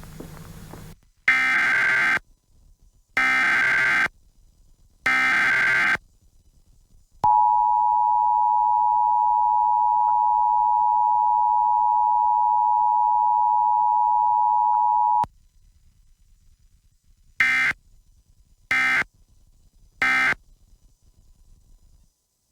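Emergency Alert System broadcast tones: three bursts of screeching digital header data, then the steady two-tone attention signal held for about eight seconds, then three short end-of-message data bursts.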